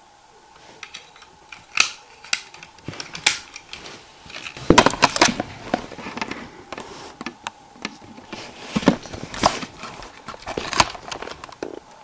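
Sharp plastic clicks and knocks from a LEGO FAMAS toy gun being handled, with a dense rattle of clicks about five seconds in.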